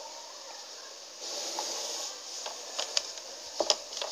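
Pencil lead scratching across paper while drawing the straight lines of a table border, with one longer stroke about a second in, then a few light sharp clicks near the end.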